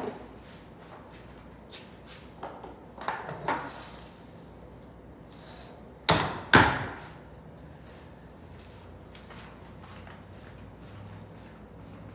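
A string of scattered knocks and clatters, with two loud bangs about six seconds in, half a second apart.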